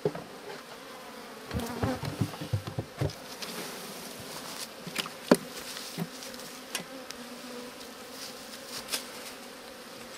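Many honeybees buzzing steadily in a close, continuous hum as a package of bees is poured into a hive. Over it come knocks and taps from handling the can and hive woodwork: a quick cluster about two seconds in and single sharp knocks later, the loudest about five seconds in.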